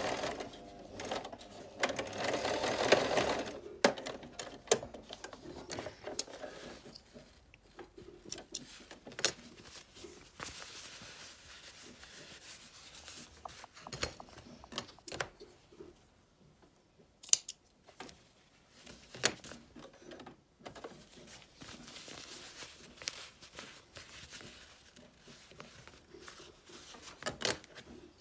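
Electric domestic sewing machine stitching in a short run in the first few seconds, then stopping. After it stops there is quiet handling of fabric with scattered clicks and rustles, and a few scissor snips near the end.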